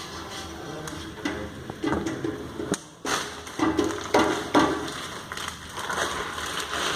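Campfire burning, with irregular snaps and crackles among uneven rushing surges.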